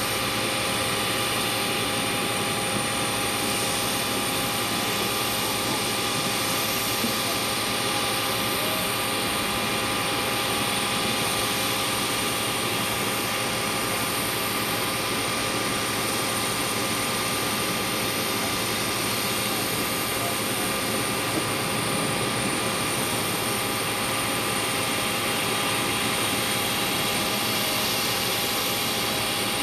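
Steady turbine whine of a parked Boeing 737's auxiliary power unit: several held tones over an even rushing hiss, with no change in pitch or level.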